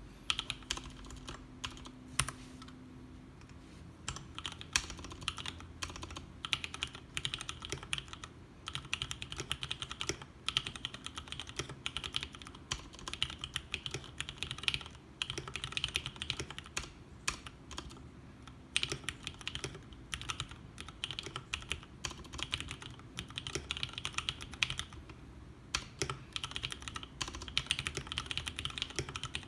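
Typing on a custom tenkeyless mechanical keyboard with lubricated vintage Cherry MX Brown switches, PBT DSA keycaps and a clear acrylic case lined with sound-dampening material. Keystrokes click in quick runs, with a few short pauses.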